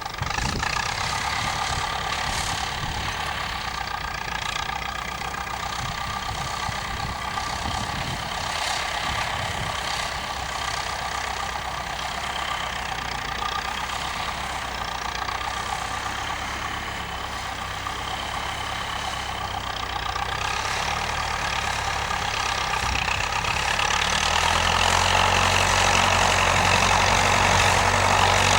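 Massey-Ferguson 65 tractor engine running steadily, getting louder over the last few seconds.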